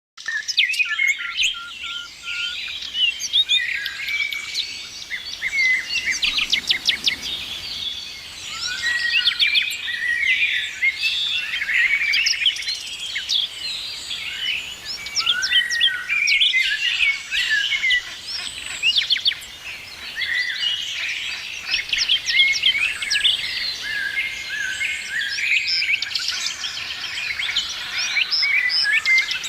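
Many songbirds chirping and singing at once, a dense chorus of overlapping short chirps, trills and whistles with no let-up.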